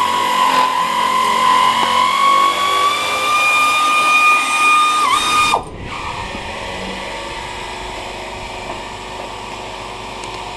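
Handheld electric drill motor running at speed, a steady high whine that creeps up in pitch, bogs briefly under load and stops abruptly after about five and a half seconds. A quieter steady background noise follows.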